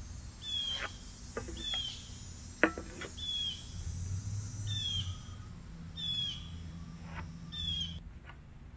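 A bird repeating a short, high, down-slurred chirp about every second, with a single sharp tap about two and a half seconds in and a few faint knocks.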